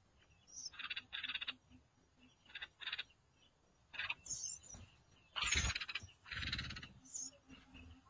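Nestling songbirds begging in the nest: a string of short, raspy calls at irregular intervals, growing louder and longer in the second half, with a few thin high chirps among them.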